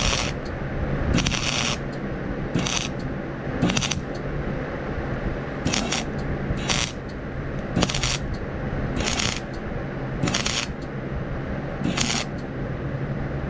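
Wire-feed welder's arc crackling in about ten short bursts, one every second or so, over the welder's steady hum: stitch or tack welding thin rake steel in short pulses to bridge the metal without burning holes through it.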